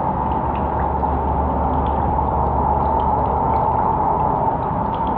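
Steady hiss of running water, even throughout.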